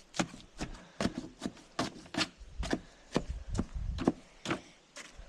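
A digging tool chopping repeatedly into wet soil and mud, working it into a thick mix: sharp strikes about three a second, unevenly spaced.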